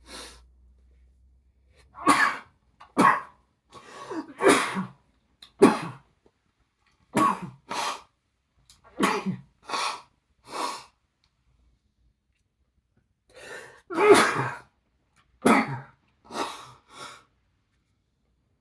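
A man's sneezing fit brought on by chhinkni sneezing powder: about a dozen sharp sneezes in quick succession, some in close pairs, with a pause of about three seconds before a last cluster. He is trying to muffle them, without much success.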